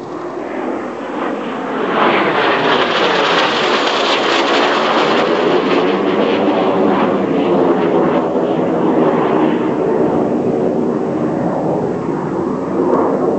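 Jet Provost jet trainer's Armstrong Siddeley Viper turbojet passing in a flyby, growing loud about two seconds in, its pitch sliding down as the aircraft goes by and climbs away.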